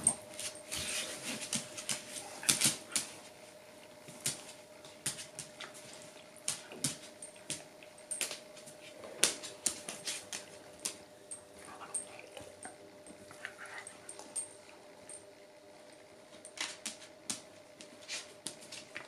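A Shiba inu and a bull mastiff tussling over a rope toy on a hard floor: irregular clicks and rattles from their claws and metal chain collars, with a soft dog whimper now and then.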